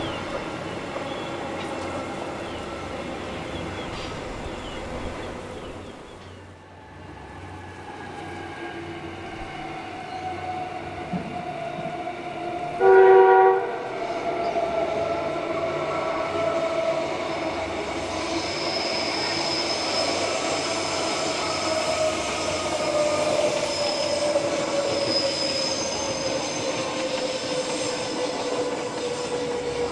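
Queensland Rail electric suburban trains: running noise of a train on the line, then a short train horn blast about 13 seconds in. After it, a passing electric train's motor whine falls slowly in pitch as the train slows, with a high squeal in the second half.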